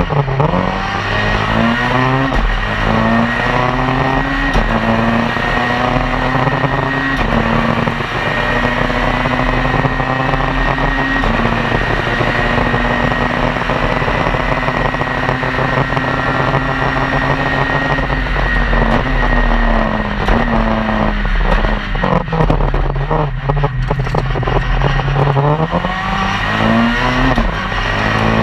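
In-car sound of a Citroën C2 R2 Max rally car's 1.6-litre four-cylinder engine at full throttle. It climbs with quick upshifts in the first few seconds and holds a steady high pitch flat out. About two thirds of the way through it falls in steps as the car brakes and downshifts, with sharp cracks, then climbs again near the end.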